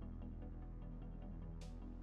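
Quiet background music with held low notes and a light, regular tick, and a short hiss near the end.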